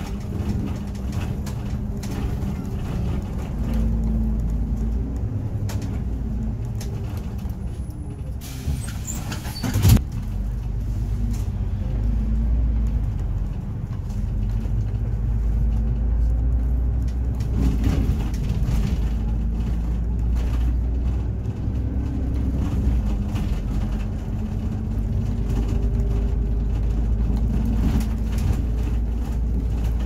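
City bus driving, heard from inside near the front: a steady low engine and road rumble. About ten seconds in, a short hiss ends in a sharp knock.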